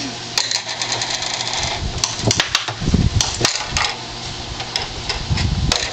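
Air hockey table's blower fan running steadily, with rapid clicks and clacks on the table surface and a few dull thumps.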